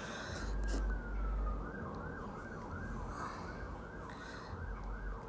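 Emergency vehicle siren: a slow wail that rises and falls, switching about two seconds in to a fast yelp of about three warbles a second.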